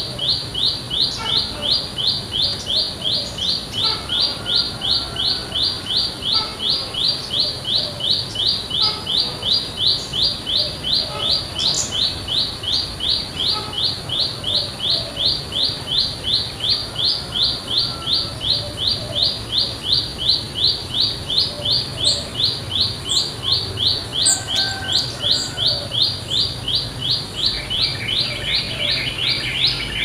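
Prenjak lumut, a small warbler, calling one sharp high note over and over, about three times a second without a pause. Other birds call faintly and now and then.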